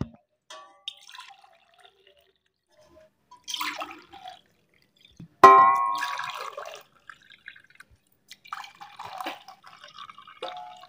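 Hot green tea poured from a steel pan into cups, trickling and splashing into the liquid. About halfway through comes one sharp clink with a short ring, the pan knocking against a cup.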